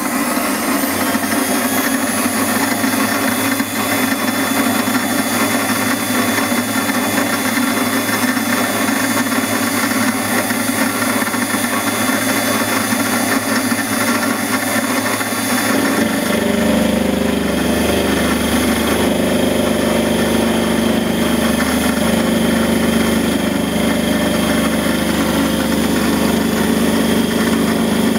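Mini metal lathe running steadily with an end mill in its chuck, milling an aluminium round bar held in a milling attachment on the cross slide. There is a steady motor hum with a higher cutting whine, and the low hum shifts in pitch about two-thirds of the way through.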